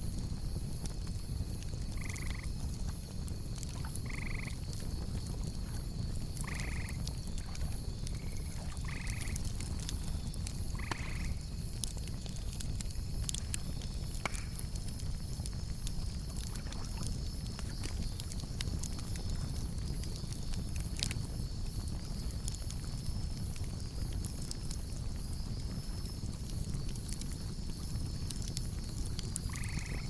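Wood campfire crackling with scattered sharp pops over a low steady rumble. Frogs croak in short calls, about five in the first eleven seconds and once more near the end, while grasshoppers chirr steadily in the background.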